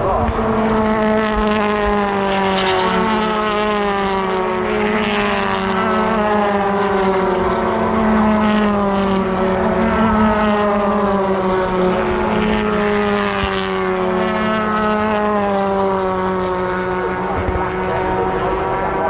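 Onboard sound of a British Touring Car Championship car's turbocharged 2-litre four-cylinder engine held at high revs, its pitch slowly falling and rising a few times without a break.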